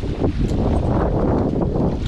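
Wind buffeting the microphone, with water sloshing alongside the boat's hull.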